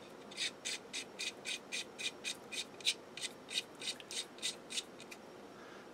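Thread protector being screwed by hand onto a threaded pistol barrel's muzzle: a faint, even run of short scratchy rasps, about four a second, as the threads turn against each other. It stops about five seconds in.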